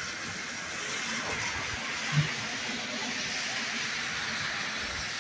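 Heavy rain falling steadily in a tropical-storm downpour, a dense even hiss, with one short low thump about two seconds in.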